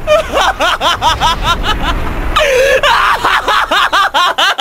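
A young man's laughter: rapid 'ha-ha-ha' syllables, about six a second, each rising and falling in pitch. It breaks off briefly about two seconds in, then starts again.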